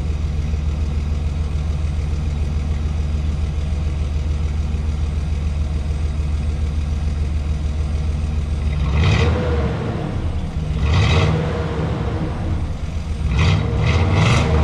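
1998 Chevy Silverado 1500 exhaust, heard at the tailpipe before the aftermarket muffler goes on: the engine idles steadily, then is revved in four short blips over the last six seconds, the last two close together.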